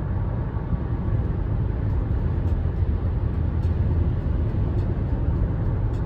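Steady low road rumble inside a moving car, with a few faint light ticks.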